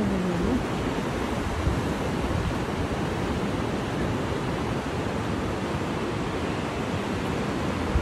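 Steady rush of sea surf under the pier mixed with wind on the microphone. A brief wavering call glides down and back up in the first half-second.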